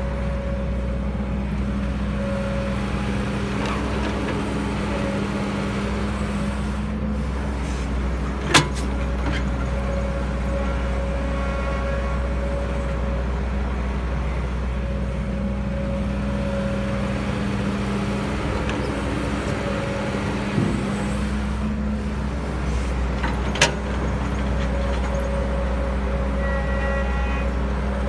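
Heavy construction-machine diesel engine running steadily, with two sharp knocks, one about eight seconds in and another some fifteen seconds later.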